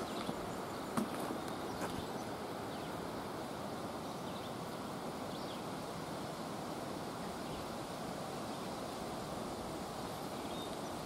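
Steady outdoor background noise, with a few light clicks in the first two seconds and faint, short high chirps scattered through.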